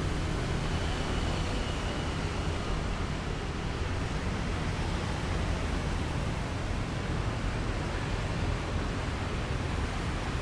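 Steady wind buffeting the microphone outdoors: a low rumble under an even hiss, with no distinct events.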